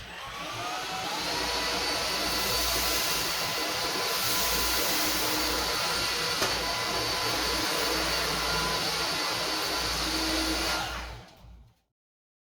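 Philips SpeedPro 8043 cordless stick vacuum switched on, its motor spinning up with a rising whine, then running steadily. Near the end it is switched off and winds down to a stop.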